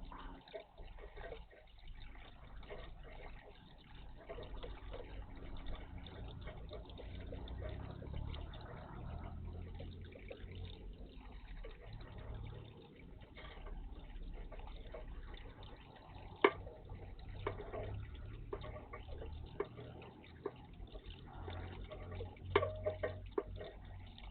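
Water splashing and dripping in a garden bird bath, with a few sharp splashes about two-thirds of the way through and again near the end.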